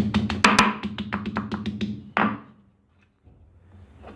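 A quick run of hard knocks from a stone pestle pounding pieces of elephant apple (chalta) on a stone grinding slab. The knocks stop a little after two seconds in.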